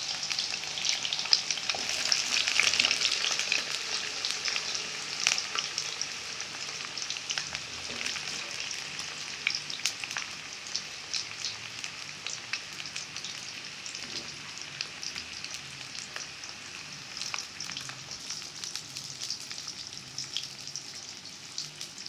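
Fresh-cut potato sticks deep-frying in hot ghee: a dense sizzle full of small pops and crackles, strongest in the first few seconds and slowly dying down as the fries settle in the oil.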